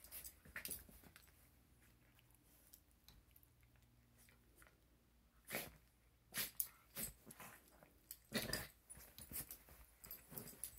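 Small dogs play-wrestling on a bed: quiet for the first half, then a run of short, sharp dog sounds and scuffling from about halfway in, the loudest a little before the end.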